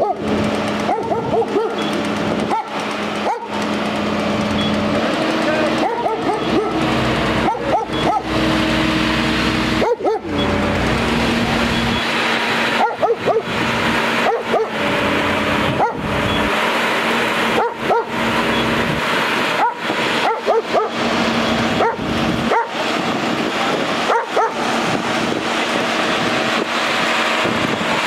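A dog barking repeatedly over the steady hum of a turntable-ladder fire engine's engine, which shifts up in pitch about five seconds in and drops back about ten seconds in as the ladder is worked.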